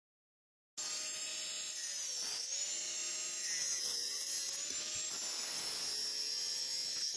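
Angle grinder with an abrasive cutoff disc cutting through a steel bicycle fork tube: a steady high whine and grinding hiss that starts abruptly about a second in, the motor's tone sagging briefly twice as the disc bites.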